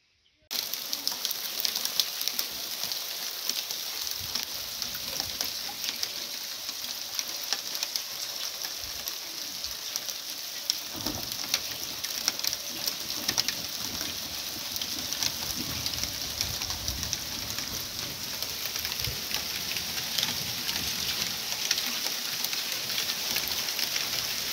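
Steady rain falling on the ground and puddles: a dense, even crackle of countless small drop impacts, starting abruptly about half a second in.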